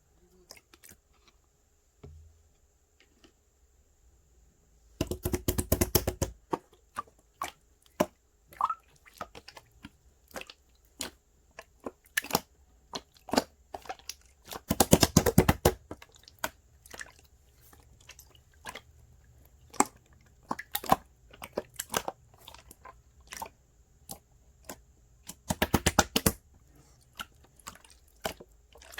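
Clear slime being squished and pressed by hand, giving sharp crackling pops of trapped air: three dense runs of rapid pops, about 5, 15 and 26 seconds in, with scattered single clicks between.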